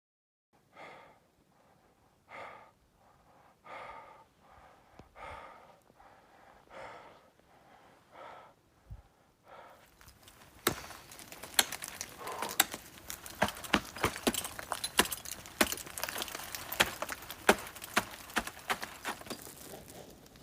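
A climber breathing hard in slow, regular heavy breaths, about one every second and a half. About halfway through, a dense run of sharp crunches and clinks takes over: footsteps and gear on hard snow and ice.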